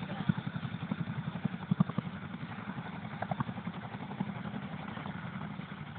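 Boeing CH-47 Chinook tandem-rotor helicopter coming in to land, its rotor blades making a rapid, even thumping.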